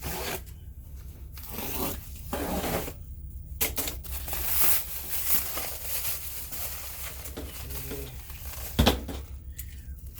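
Packaging being torn open by hand: irregular ripping and crinkling of packing material, with one sharp knock about nine seconds in.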